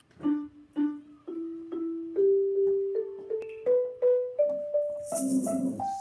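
Mallets striking the bars of an Orff-style barred classroom instrument, the notes climbing step by step up a scale at about two a second. A shaker-like rattle comes in about five seconds in.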